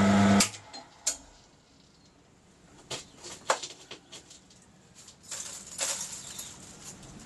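Bench mill-drill motor running, switched off and cutting out about half a second in. Then scattered light metallic clicks and scrapes as a small brush sweeps steel chips off the workpiece and vise.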